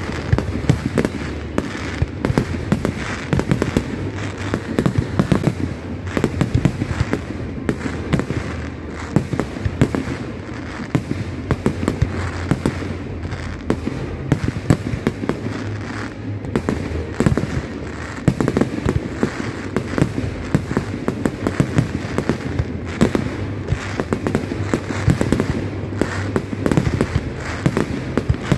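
Aerial fireworks display in a rapid, continuous barrage of bangs, many shells bursting close together with no pause.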